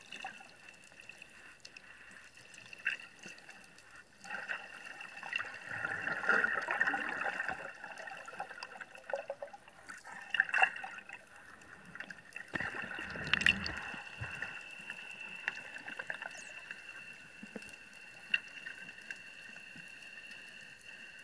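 Underwater ambience picked up by a submerged camera: muffled rushing and gurgling of water and bubbles, swelling a few seconds in and again past the middle, with a few sharp clicks over a steady high hum.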